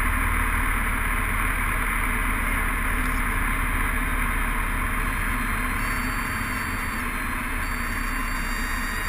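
Light single-engine airplane's piston engine and propeller droning in the cockpit with rushing airflow during the landing, easing slightly in level as the plane slows.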